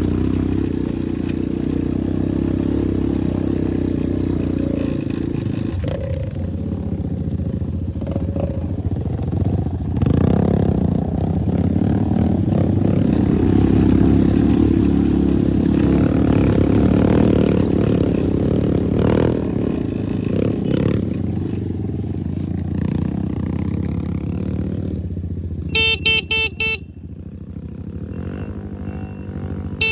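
Motorcycle engine running steadily during a ride, rising and falling with the throttle. Near the end comes a quick run of short horn beeps.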